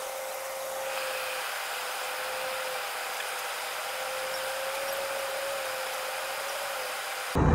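Airliner cabin noise in flight, played back sped up about ten times, so it comes out as a steady high hiss with a faint wavering whine and no low rumble.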